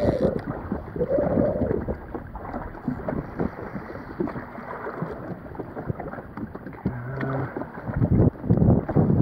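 Wind buffeting the microphone and sea water slapping against a drifting jet ski's hull, in gusts that are louder at the start and near the end.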